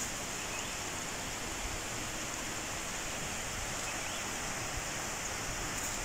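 Steady, even outdoor hiss with no distinct events, its high part strongest.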